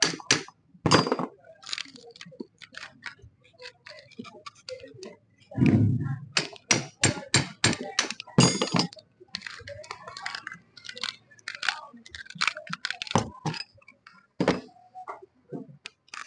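Hand hammer striking a steel punch driven into a generator armature's winding, sharp metal-on-metal blows in quick runs with short pauses and a heavier, deeper thud about six seconds in, loosening the old coil from the pole.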